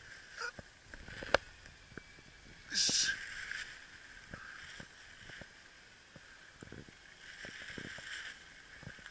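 Rustling and crackling of undergrowth and dry leaf litter as a gloved hand reaches in and picks a mushroom, then steps over the forest floor, with scattered small ticks. A single sharp snap comes about a second and a half in, and a short, louder brushing rustle around three seconds in.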